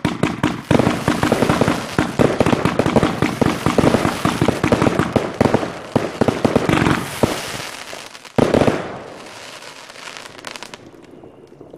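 Many fireworks going off at once: dense, rapid bangs and crackling. They thin out after about seven seconds, then one more loud bang comes a little past eight seconds and the sound dies down.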